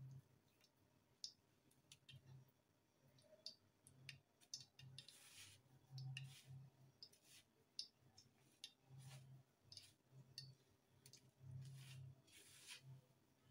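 Faint, scattered clicks and brief rustles of dry bread crumbs as potato slices on skewers are pressed and turned in them to coat them.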